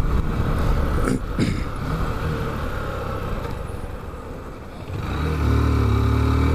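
Motorcycle engine running under the rider with road noise, easing off, then pulling hard again about five seconds in, its pitch rising as it accelerates.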